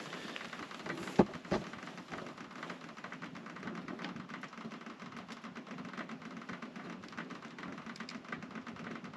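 Wood fire crackling in a King Camp wood-burning camp stove: a dense run of small ticks and pops, with two louder pops between one and two seconds in.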